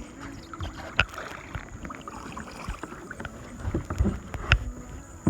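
Kayak being paddled: paddle strokes swishing and dripping in the water, with sharp knocks, one about a second in and a cluster around four seconds in.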